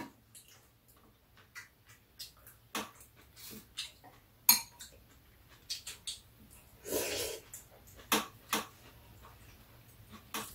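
Metal spoons and chopsticks clinking and scraping against bowls during a meal, in scattered irregular clicks with a sharper clink about four and a half seconds in. A longer, softer noise comes about seven seconds in.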